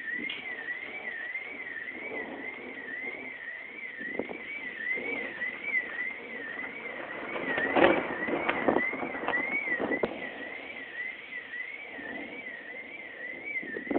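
An electronic alarm siren wails continuously, its pitch sweeping up and down about twice a second. Irregular louder rumbles of noise come and go, strongest about eight seconds in.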